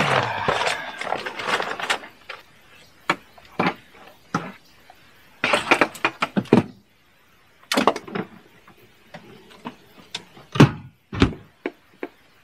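A person moving about and handling gear: a rush of rustling in the first couple of seconds, then scattered knocks and clatters, with two heavy thumps near the end.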